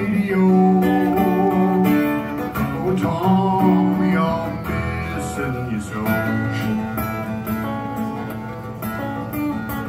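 Live acoustic guitar playing in a folk song, with a melody of long held, slightly wavering notes over the strumming.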